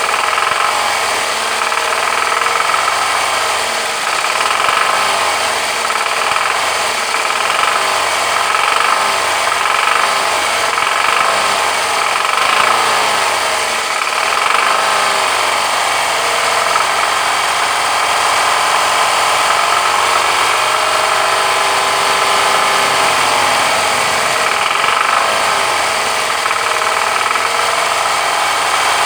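Toyota 1AZ-FE 2.0-litre four-cylinder engine running with a knock.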